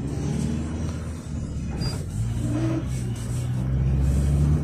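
GAZelle Next minibus with its Evotech engine, heard from inside the cabin as the bus drives. The engine note dips briefly about a second in, then builds and grows louder toward the end, over steady road noise.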